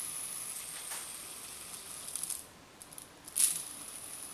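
Handheld fidget spinner flicked and spinning, its bearing giving a faint high whir with light rattling; it dies away and is flicked again about three seconds in.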